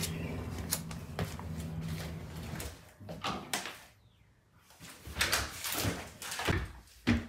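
A steady low hum with scattered clicks for the first couple of seconds, then, after a brief near-silence, a house door being shut and footsteps on a wooden floor, with knocks from a cardboard box being handled.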